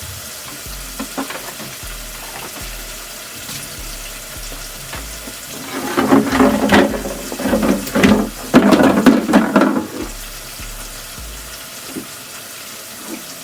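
Food frying steadily in a pan. From about six to ten seconds in, a louder stretch of splashing and clattering.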